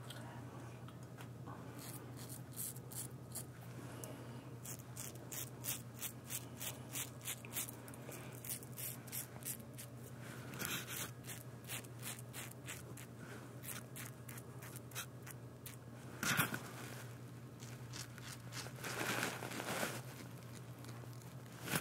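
Merkur 34C HD double-edge safety razor scraping through lathered stubble on the neck in quick short strokes, a few a second, over a steady low hum. A couple of louder, longer rasps come later on.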